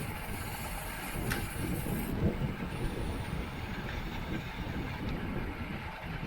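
Wind buffeting a microphone moving at racing speed, a gusty low rumble over a steady rush of road noise, with a brief hiss in the first two seconds and one sharp click just over a second in.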